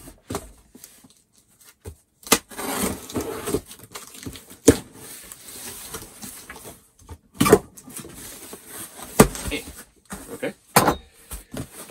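Cardboard shipping box being cut open with a knife: scraping, rasping strokes as the blade slits the packing tape, broken by sharp knocks and snaps of the cardboard flaps, the strongest about 2, 5, 7, 9 and 11 seconds in.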